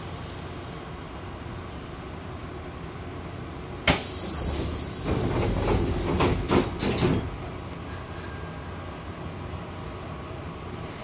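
Sliding passenger doors of a Hankyu train closing. After a steady low hum, a sudden loud hiss starts about four seconds in, and then the door leaves slide shut with a few knocks as they meet and seal, followed by a brief faint high tone. The steady hum of the standing train returns.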